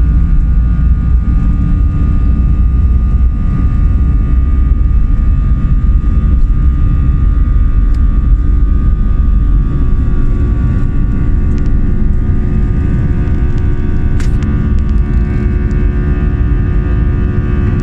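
Airplane jet engine running steadily: a loud, constant low rumble with steady whining tones over it.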